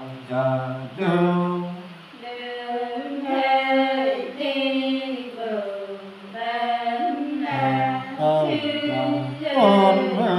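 Men singing unaccompanied in a chant-like folk style, holding long notes and sliding between pitches, with more than one voice at times.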